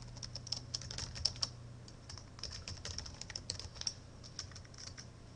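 Typing on a computer keyboard: an irregular run of quick key clicks, with a faint steady low hum underneath.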